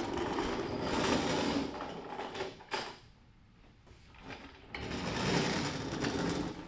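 A small power tool running in two bursts of about two seconds each, with a quieter gap between, while bolts are worked during transmission removal.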